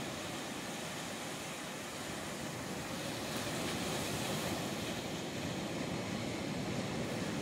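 A steady, even rushing noise with no pitch, growing a little louder about three seconds in.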